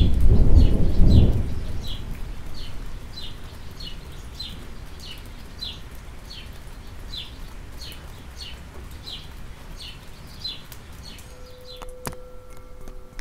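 Thunder rumbling and dying away over the first two seconds, over steady rain, while a bird repeats a short, high, falling chirp about twice a second. Near the end a singing bowl begins ringing with a steady tone.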